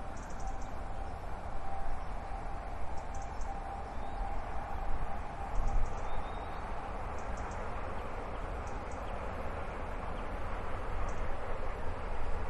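LNER Azuma high-speed train passing at a distance: a steady rushing noise with a faint steady whine that fades out about halfway through. Short high bird chirps come every second or two.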